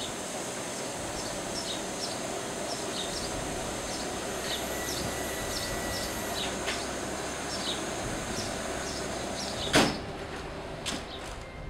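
Steady outdoor background noise with birds chirping in short high notes. A single loud clunk comes near the end, with a duller knock about a second later.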